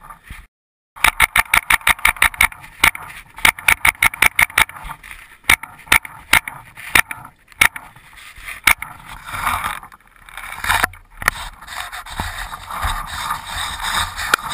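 Tippmann X7 paintball marker firing a rapid string of sharp shots, about six a second, then a few single shots spaced out. Near the end, scuffing and rustling as the player moves.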